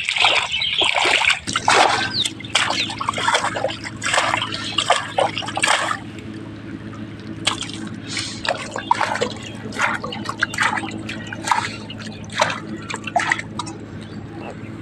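Hands splashing and squelching through shallow muddy water, with many irregular splashes and drips, busiest in the first few seconds. A steady low hum runs underneath from about a second and a half in.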